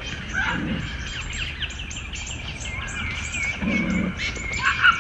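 Small birds singing, with many quick chirps and short trills repeating throughout, over a steady low rumble.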